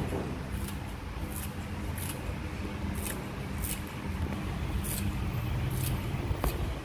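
Steady low mechanical hum with a few faint, short high ticks scattered through it.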